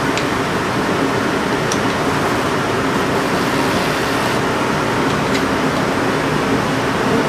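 Shoe-repair sole stitching machine running steadily with a constant mechanical hum as a new sole is sewn onto a shoe, with a few faint ticks.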